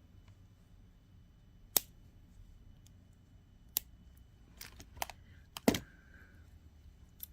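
Sharp clicks and taps of small jewelry tools and beads being handled on a work surface: about six scattered clicks, the loudest a little under six seconds in.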